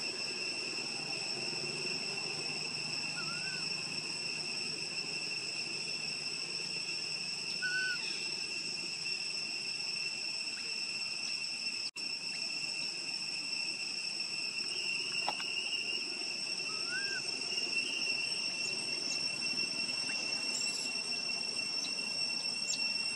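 Steady high-pitched drone of insects, unbroken at fixed pitches, with a few faint short rising chirps over it and a brief dropout about halfway.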